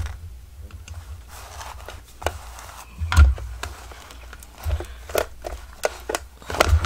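Handling noises as a journal cover and paper are moved and positioned by hand: scattered light taps and rustles, with a louder knock about three seconds in.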